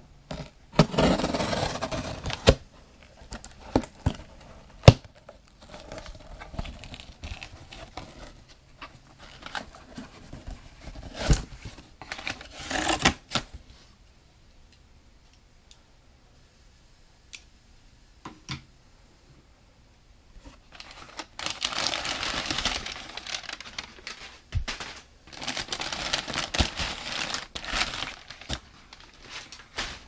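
A cardboard shipping box being opened by hand: packing tape torn off and the cardboard flaps scraped and handled. The sound comes in several noisy bursts a couple of seconds long, with sharp knocks between them and a quieter stretch around the middle.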